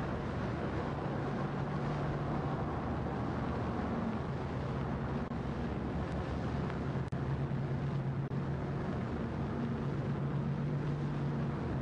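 Steady hiss and low hum of a worn 16mm optical film soundtrack with no narration on it, broken by a brief dropout about seven seconds in.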